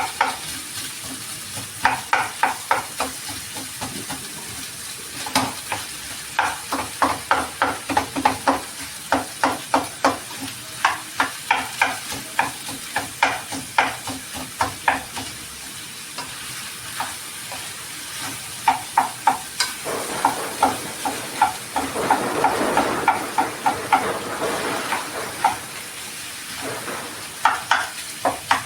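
A utensil stirring and scraping food in a hot pan in quick repeated strokes while the food sizzles. The sizzle swells for a few seconds just past the middle.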